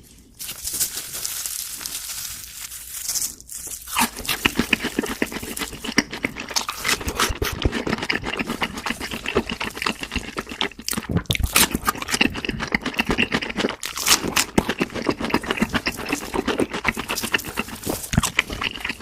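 Close-up crunching and chewing of crispy fried food, dense irregular crackles and crunches with a brief lull about three and a half seconds in.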